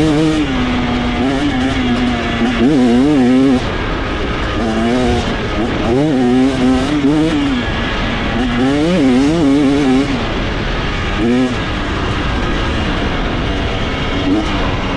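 KTM 250 SX two-stroke motocross engine running, revved in several short wavering blips of the throttle. Between the blips it falls back to a steady note.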